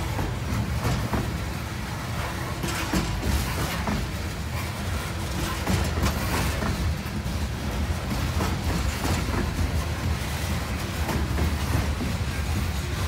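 Open-top coal cars of a CSX freight train rolling past: a steady low rumble of steel wheels on rail, with scattered clicks and clunks from the wheels and couplings.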